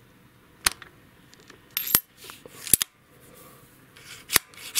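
A metal seal-pulling tool clicking and tapping against the valve stem and cylinder head as a worn, hardened valve stem seal is worked off: half a dozen sharp, irregularly spaced clicks.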